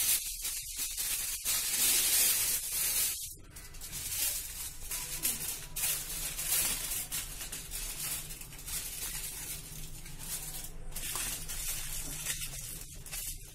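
Aluminium foil crinkling and rustling as it is pressed and crimped around the rim of a cooking pot. The sound is loudest in the first three seconds, then softer and more broken up.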